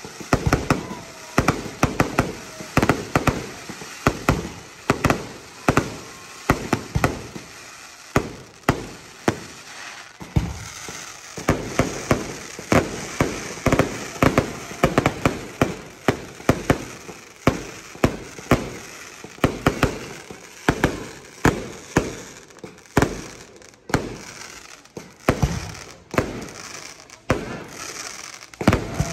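Professional fireworks display in full barrage: shell bursts banging in quick succession, about two a second, each trailing off in echo.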